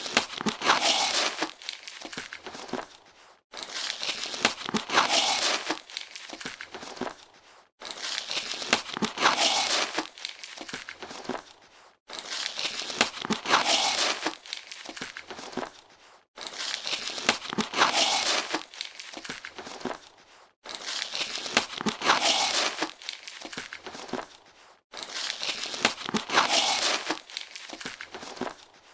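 A cardboard box being opened: crinkling, rustling and tearing of sealing tape and cardboard flaps. The same take of about four seconds repeats about seven times, each separated by a brief gap.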